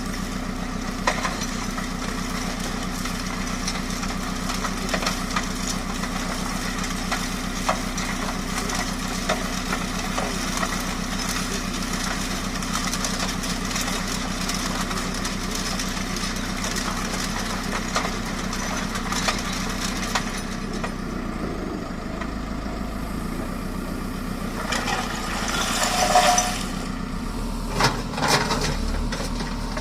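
Backhoe loader's diesel engine running steadily while a hydraulic bucket attachment works stone, with scattered sharp knocks. A louder clattering burst comes about 25 seconds in, and another near the end.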